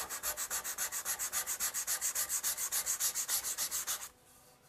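Hand sanding of wood with folded 220-grit sandpaper: fast, even back-and-forth rasping strokes, about nine a second, that stop about four seconds in.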